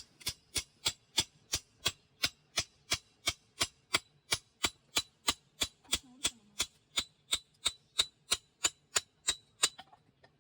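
A rapid, evenly spaced series of sharp taps or ticks, about three a second, keeping a steady pace throughout.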